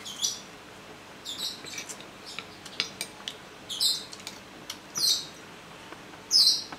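A metal spoon and fork clink and scrape lightly on a ceramic plate as rice is scooped up. Over it, bird chirps come about every second, and they are louder than the cutlery.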